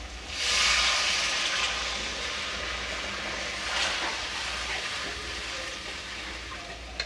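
Water poured into a hot kadai of oil-fried masala bursts into a hiss and sizzle about half a second in as it hits the hot oil and boils up. The hiss then slowly fades.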